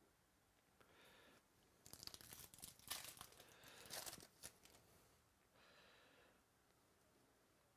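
A foil trading-card pack is torn open and crinkled: a crackly run of tearing lasting about three seconds, loudest in the middle. A softer rustle follows as the cards are slid apart in the hands.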